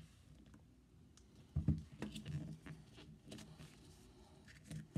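Faint handling sounds of plastic-gloved fingers pressing and rubbing around the edge of a silicone mold to loosen a set resin casting, with small scattered clicks and one dull thump about a second and a half in.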